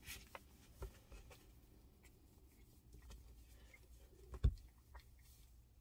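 Faint rubbing and scratching of a wet wipe on a puppy's fur, with scattered soft clicks and one sharper knock about four and a half seconds in.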